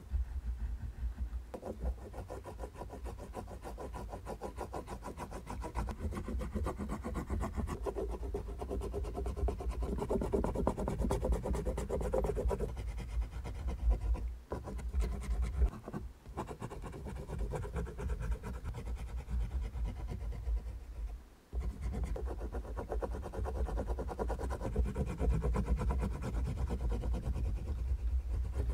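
Oil pastel stick scribbling rapidly back and forth on paper, a dense scratchy rubbing made of many quick strokes. It breaks off briefly about halfway through and again about two-thirds of the way in.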